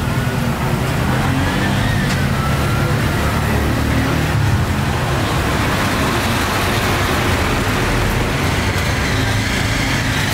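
Steady street traffic: vehicle engines running close by as a continuous low hum.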